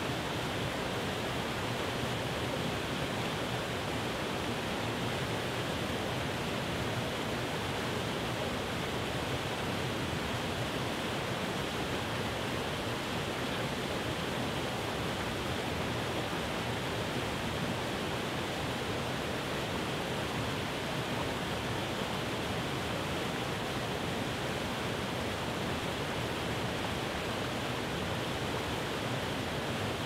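Water rushing down a small cascading waterfall over rock ledges, a steady, unbroken rush.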